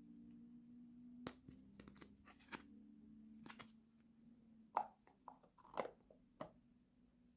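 Miniature plastic toy kitchen pieces handled and set down: light plastic clicks and taps over a faint low hum, with a cluster of sharper knocks in the second half.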